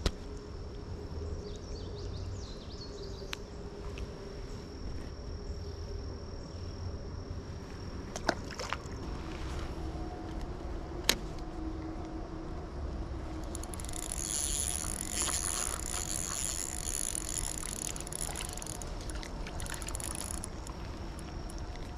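Ultralight spinning reel in use: two sharp clicks a few seconds apart as the bail is worked for a cast, then several seconds of high whirring as the reel is wound in. Under it runs a steady outdoor background with a faint constant high drone.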